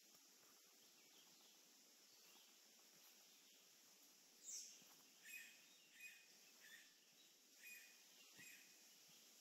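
Near silence, then about halfway through a bird calls: a series of about six short, high chirps, roughly every two-thirds of a second.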